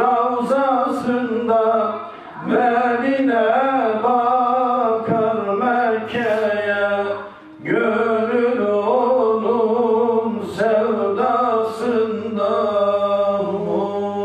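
A man sings a Turkish ilahi (Islamic devotional hymn) unaccompanied, in long melismatic lines with wavering, ornamented held notes. He breaks briefly for breath about two and seven seconds in.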